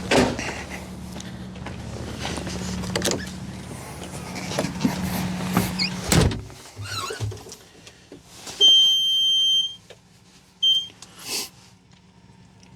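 Thumps and clunks of someone climbing into a Bobcat T76 track loader's cab, ending in one loud clunk about six seconds in, over a steady low hum. Then the machine's electronic warning beep sounds for about a second, followed by a short second beep, as the key is switched on to heat the glow plugs before a cold start.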